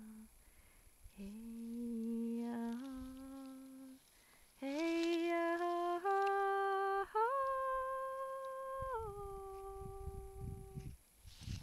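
A woman's voice singing slow, wordless held notes that climb step by step in pitch, each note held one to two seconds. After the highest note it drops to a lower one, which ends shortly before the end.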